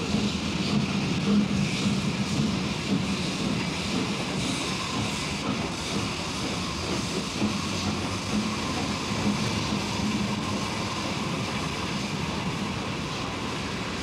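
A train running on the rails, a steady rumble that slowly fades near the end.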